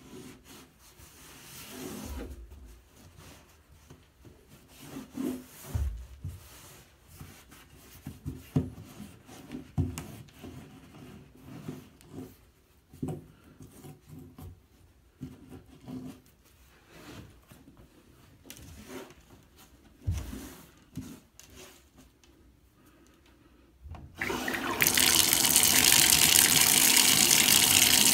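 A cloth rag rubbing and wiping around a bathtub drain opening, with scattered soft knocks and scrapes. Near the end a tap is turned on suddenly and water runs loudly and steadily.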